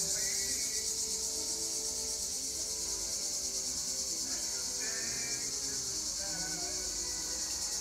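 Steady, high-pitched chorus of insects shrilling outdoors, with a few short faint chirps about five seconds in.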